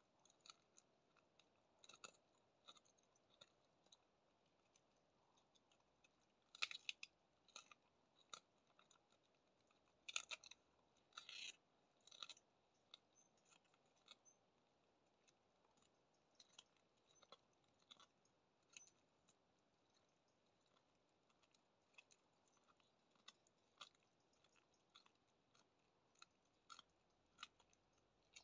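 Snow leopard chewing and tearing at a carcass: irregular soft crunches and clicks, with louder bouts about seven seconds in and again around ten to twelve seconds in.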